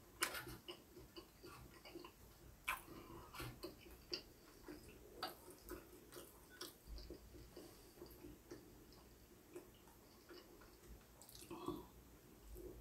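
Near silence broken by faint, scattered clicks and small mouth sounds: chopsticks picking up grilled pork belly, and quiet chewing.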